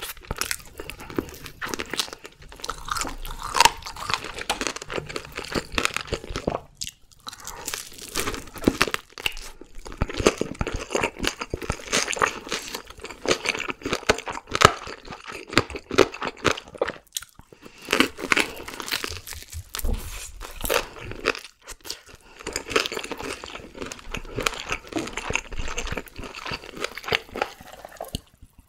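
Close-miked crunching and chewing of crispy deep-fried whole chicken, the crackly fried skin breaking between the teeth, with a few short pauses.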